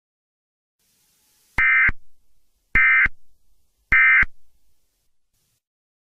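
Emergency Alert System SAME end-of-message data bursts: three short, identical digital tone bursts about a second apart, each about a third of a second long. They mark the end of the emergency alert.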